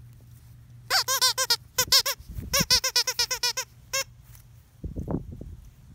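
A squeaky toy bird being chewed and squeezed by a pack of puppies: well over a dozen short, high squeaks of the same pitch in quick runs, followed by some low scuffling near the end.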